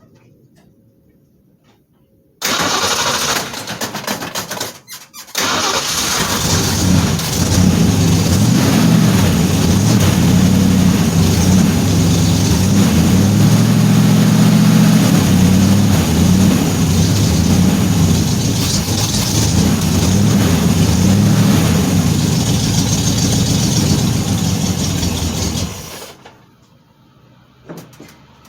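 1966 Shelby GT350's 289 V8 is cranked by the starter for about three seconds, catches, and runs steadily for about twenty seconds before it is switched off near the end. The start shows that the newly fitted battery kill switch is passing power with its top tightened down.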